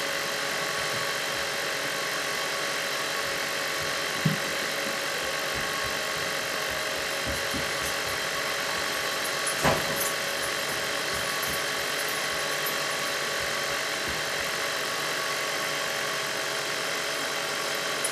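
Jovy RE-7500 BGA rework station running its heaters on a fast reflow profile: a steady blower hum with a few high, even whining tones. Two short knocks come about 4 and 10 seconds in.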